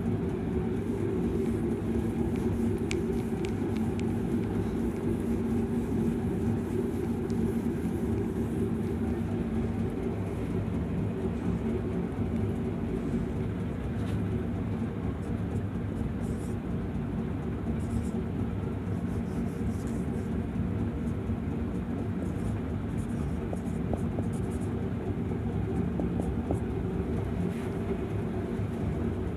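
A steady low mechanical hum, even in level throughout, with a few faint clicks.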